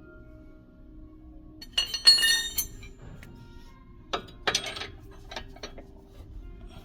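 Metal tools or parts clinking: one bright ringing clink about two seconds in, then a few shorter clicks and knocks.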